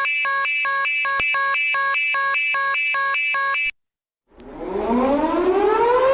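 An electronic warning tone alternates rapidly between a high and a low pitch, about two to three changes a second, and cuts off suddenly a little past halfway. After a brief silence, a civil defense siren winds up, rising smoothly in pitch and levelling off into a steady wail near the end.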